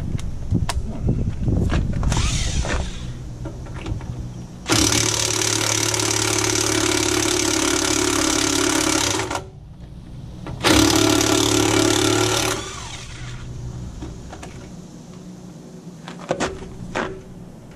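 DeWalt impact wrench hammering in two runs, about four and a half seconds and then about two seconds, loosening a chrome lug nut through a wrong-size socket. A few clicks and knocks of handling come before it.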